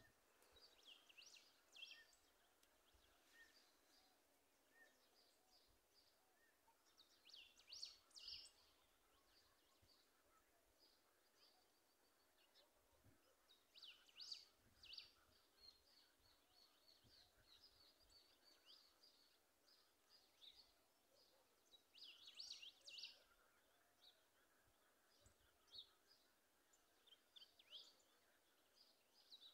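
Faint bird calls: clusters of short, high chirps and song phrases every several seconds.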